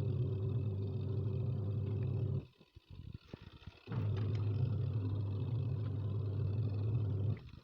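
Top-loading washing machine running its wash action in two spells of about three seconds each, with a pause of about a second and a half between them that holds a few small clicks. The drum is working a heavy, water-soaked blanket.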